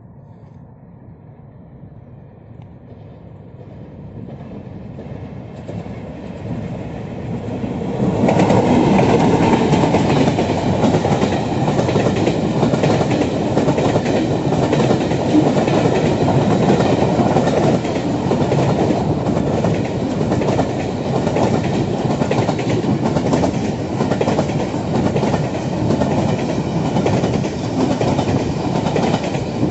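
A diesel-hauled Pakistan Railways freight train (GEU-40 locomotive) approaching, growing steadily louder, then loud from about eight seconds in as the long line of covered box wagons rolls past close by. The wagons' wheels clatter steadily over the rail joints.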